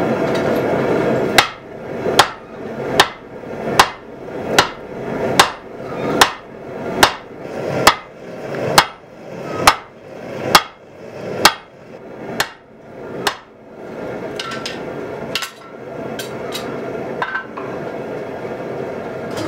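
Blacksmith's hand hammer striking a handled tool set in red-hot truck-spring steel on a cast iron swage block: about fifteen ringing blows, a little under one a second, that stop about two-thirds of the way through. A steady forge roar runs underneath.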